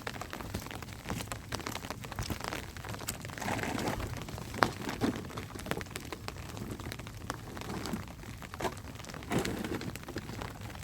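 Rain falling on a surface, with irregular sharp ticks of drops and a few louder knocks.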